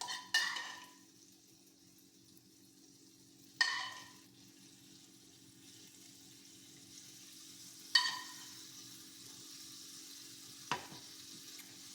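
A tortilla frying in a pan, with a faint sizzle that grows from about halfway. A few sharp, ringing clinks of a utensil against the cookware, and a duller knock near the end.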